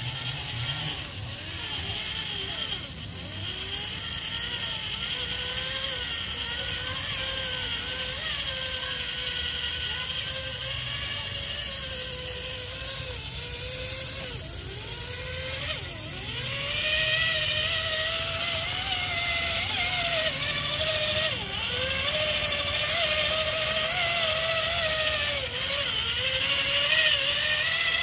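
Electric motor and gear drive of a radio-controlled crawler truck whining, the pitch rising and falling constantly with the throttle, over a steady hiss; it gets louder about two-thirds of the way through.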